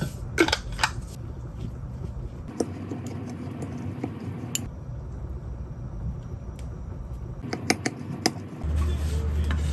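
Kitchen clatter: a few sharp clinks and taps of dishes and utensils over a low steady hum, with a louder low hum starting near the end.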